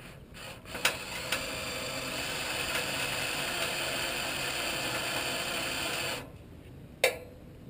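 Cordless drill boring a small oiled pilot hole, about 1/8 inch, into a steel trailer frame. After a few clicks it runs steadily for about five seconds and stops abruptly about six seconds in, followed by one sharp click near the end.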